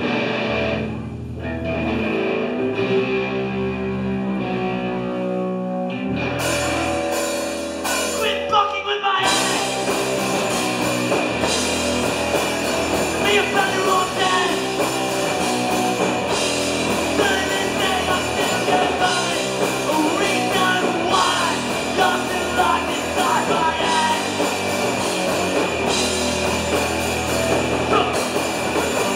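Live punk rock band: electric guitars ring out alone for the first few seconds, drums come in around six seconds in, and at about nine seconds the full band kicks in with singing.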